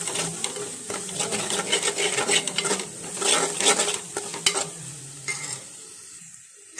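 Masala paste sizzling in hot oil in an aluminium pan, stirred and scraped with a steel ladle in many short strokes; it is being fried until the oil separates. The stirring stops near the end, leaving a quieter sizzle.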